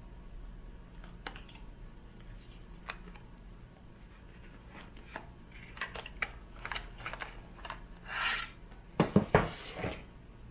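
Unboxing of an Apple USB SuperDrive: scattered light clicks and taps from the box and packaging being handled, a short rustle a little after eight seconds, then a quick cluster of louder knocks near the end.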